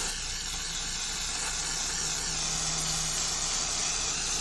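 Aerosol spray can hissing steadily as cleaner is sprayed over a trimmer part.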